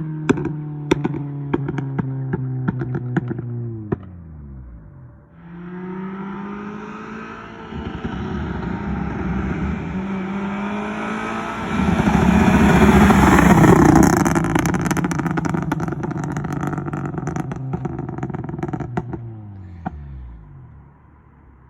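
Honda K24A four-cylinder in a 2008 Civic Si, tuned for pops and crackles. It comes off the rev with its pitch falling and a rapid string of sharp exhaust pops and crackles. Then it is revved up again and held at steady high revs, loudest a little past the middle, before dropping back near the end.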